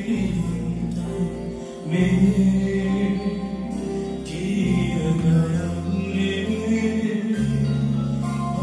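Live band music with long held notes and a male singer's voice, recorded from the audience in a concert hall.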